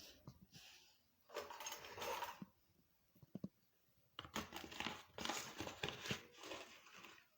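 Rustling and scraping handling noises in two bursts, a short one of about a second and a longer one of about three seconds, with a few light clicks between them.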